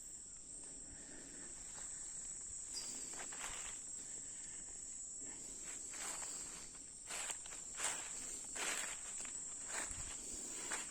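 Footsteps, one stroke every half second to a second, starting about three seconds in, over a steady high-pitched insect chorus.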